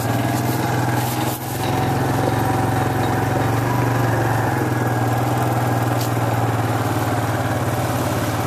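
ATV engine idling steadily close by, with a brief dip in level about a second and a half in.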